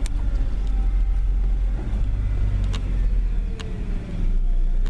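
Car driving, heard from inside the cabin: a steady low road-and-engine rumble with a few sharp clicks. The rumble dips briefly about three and a half seconds in.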